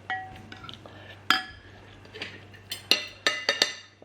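Cutlery clinking against a dish while eating, with about seven sharp, ringing clinks, most of them close together in the last couple of seconds.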